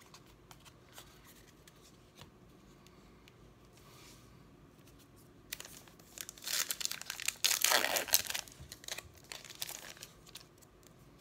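Foil trading-card pack being torn open and its wrapper crinkled. A few soft clicks of cards being handled come first. The crinkling starts about halfway through, runs for about four seconds and is loudest near the end.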